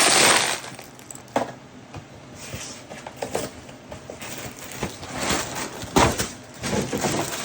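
Dry uncooked pasta poured from its box into a large batch of dry treat mix: a loud rattling rush for about the first half-second, then scattered knocks and rustling as the packaging and mix are handled, with a sharp knock about six seconds in.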